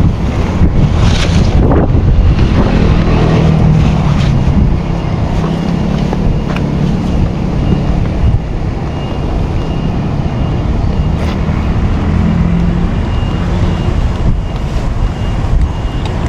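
Wind buffeting the microphone outdoors, a dense low rumble, with a wavering low hum that comes and goes through the middle.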